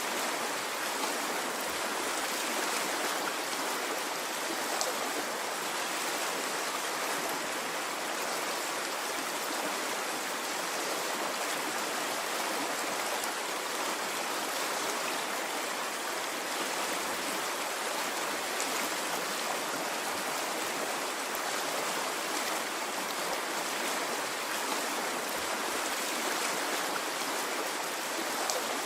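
A stream flowing, its water running steadily and evenly with no surges or breaks.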